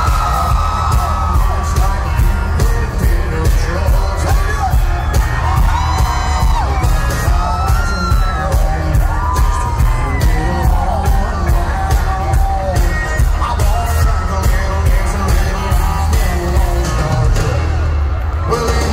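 Live country music played loud by a full band with a steady drum beat and a male lead vocal, with the crowd yelling and whooping along.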